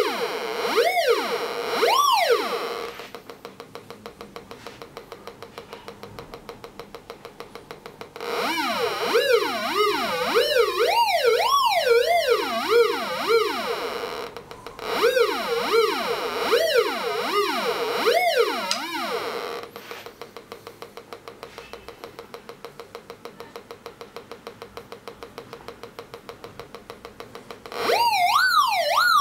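Raptor X pulse induction metal detector's audio signal: a pitched tone sweeping up and down in quick arcs as metal is passed over its 32D search coil. It comes in bursts in the first few seconds, through the middle, and again near the end. Between them there is only a faint steady threshold tone with fast ticking, free of interference, which the maker puts down to the detector running interference-free next to working air-conditioning units.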